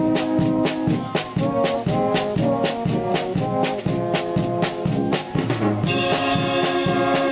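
Brass band music: brass instruments playing chords over a brisk, steady drum beat, with a cymbal crash about six seconds in.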